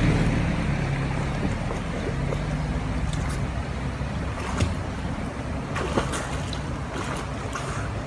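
Steady rumbling noise of moving water and wind on the microphone beside a stream, with a couple of light knocks in the second half.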